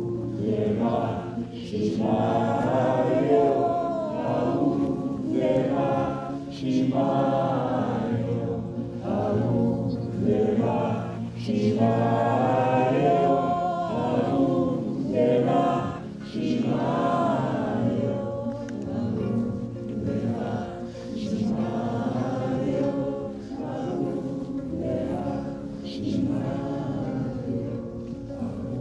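Group of voices singing a devotional song together, over steady held low tones.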